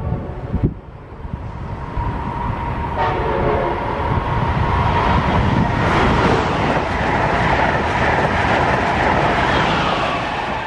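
Passenger train passing close by: steady rushing and rolling noise of the cars on the rails with a steady whine, growing louder from about two seconds in. A short train horn blast sounds about three seconds in.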